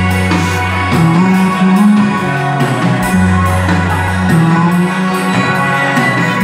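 Live Greek band playing a song, with bowed violin, bouzouki and drum kit over sustained bass notes, the drums keeping a steady beat of about two strokes a second.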